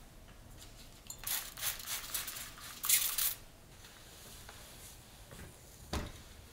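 Red flannel being handled on a padded ironing board: about two seconds of hissy rustling in uneven bursts, then a single dull thump near the end as the electric iron comes down on the fabric.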